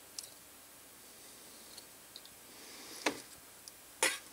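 Faint small clicks of needle-nose pliers bending a thin antenna wire, then three sharper clacks near the end as the metal pliers are set down among other tools on a wooden workbench.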